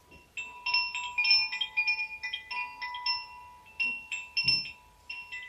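A timer's fun reminder tune: a quick melody of many short, high notes over a held tone.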